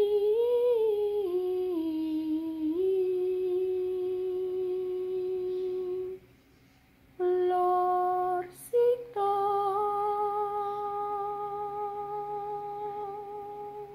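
A person humming long held notes in a mid-high voice. The first note wavers and steps down before settling. After a short gap about six seconds in comes a brief note, then another long steady note from about nine seconds on.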